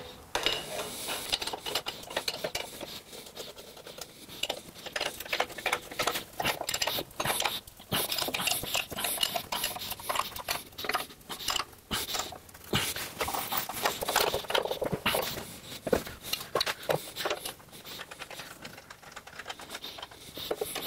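Hand wrench working square-head bolts tight on a safe's caster mounts: irregular metallic clicks and clinks of the steel wrench against the bolt heads and caster brackets.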